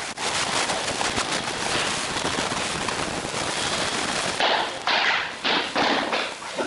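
Wooden floor planks being pushed and fitted together by hand: a dense run of crackling clicks and rattles, then, for the last two seconds, a series of sharp knocks about every half second.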